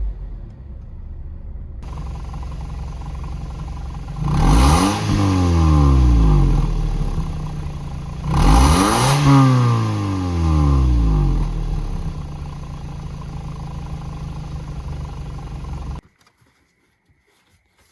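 2006 Scion xA's 1.5 L 1NZ-FE four-cylinder engine idling, revved up sharply twice and each time settling back to idle. It is being revved to bring out an intermittent misfire that it is no longer showing. The sound cuts off abruptly near the end.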